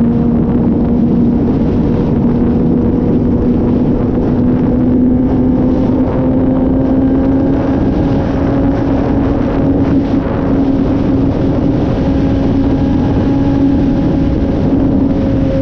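Sport bike engine pulling steadily at high revs at highway speed, its pitch creeping slowly upward, under heavy wind rush on the microphone.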